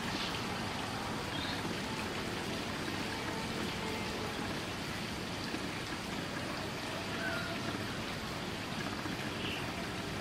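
Steady, even outdoor hiss like light rain or running water, with a few faint short high chirps here and there.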